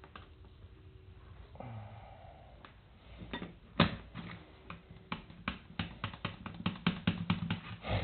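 Small metallic clicks and clinks of a steel foothold trap being worked by hand, with one sharper click a little before the midpoint and a quickening run of clicks near the end.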